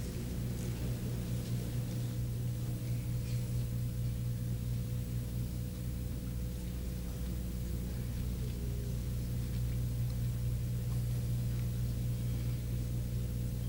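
Steady low hum with a faint, thin higher tone held above it, unchanging throughout: the background hum of a large hall's sound pickup with no one speaking.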